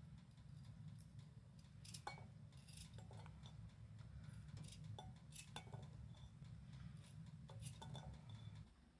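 Faint scattered clicks and taps of a kitchen knife cutting potato into strips by hand over a ceramic bowl, with strips dropping into the bowl. A low steady hum underneath stops near the end.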